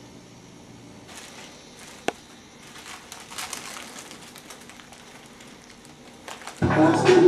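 Faint crackling and rustling over a low hiss, with one sharp click about two seconds in; near the end, loud music with a clear melody starts abruptly.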